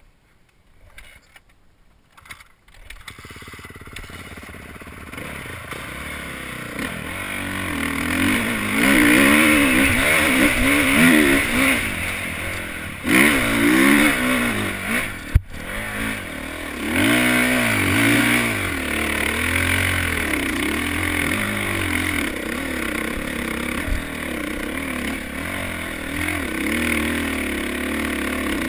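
Honda dirt bike engine working up a steep sandy hill climb, its note rising and falling with the throttle. It builds in after a few quiet seconds and is loudest around the middle, with a single sharp click a little past halfway.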